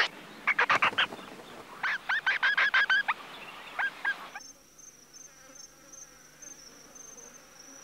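Nestling white-faced herons begging: rapid series of short, harsh calls in clusters, about seven a second at their fastest, stopping abruptly about four seconds in. After that, a steady high-pitched insect sound, much quieter.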